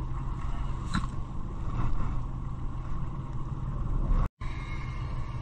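Fishing boat's engine running steadily, a constant low rumble. There is a faint click about a second in and a brief drop-out of all sound about four seconds in.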